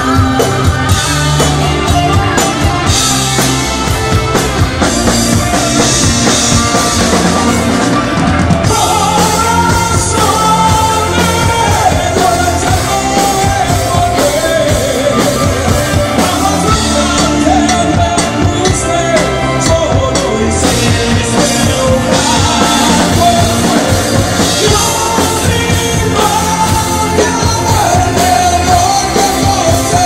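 Live rock band playing loudly on electric guitar, bass, keyboards and drums, with a male lead singer coming in about eight seconds in and singing over the band.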